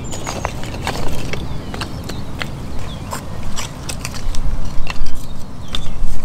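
Small pieces of split kindling wood clattering and knocking against each other as they are gathered and stacked by hand, in quick irregular clicks that get louder and denser in the second half.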